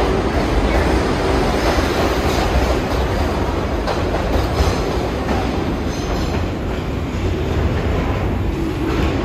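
New York City subway train on the IRT Lexington Avenue Line moving along the platform, a steady loud noise of steel wheels running on the rails.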